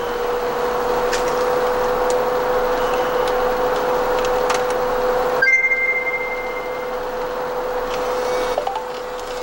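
Laptop cooling pad's two fans running steadily: an airy whir with a steady hum tone. About halfway through the hiss thins and a faint high whistle sounds briefly.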